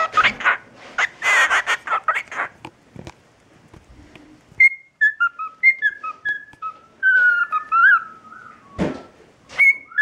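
Cockatiel chattering in a raspy voice for about two and a half seconds, then whistling a string of short gliding notes that ends in a longer wavering whistle. A sharp bump comes near the end, followed by one more whistled note.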